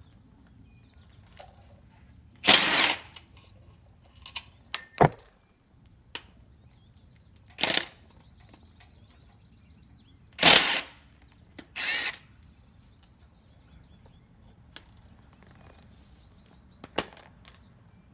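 Milwaukee Fuel cordless impact wrench hammering in about five short bursts, each under a second, as it rattles loose the main bearing cap bolts of a BMW M50 engine block. A few light clicks follow near the end.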